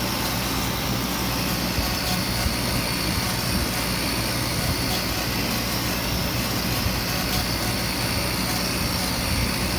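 Laser engraver running mid-engrave, its head scanning over birch plywood: a steady mechanical whir of fans and motors with a low hum.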